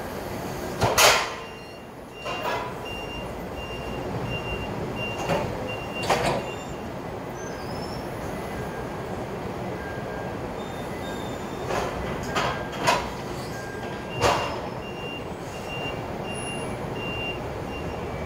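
Forklift warning alarm beeping about twice a second in two runs, over the steady running noise of the machines at the dock. Several short, sharp clanks or hisses cut through, the loudest about a second in.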